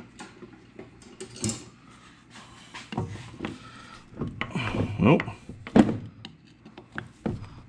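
Screwdriver working at a seized Phillips screw in a cast oil pump's back plate: scattered metal clicks, scrapes and knocks as the bit bears down and the pump shifts on the metal bench, the screw not turning.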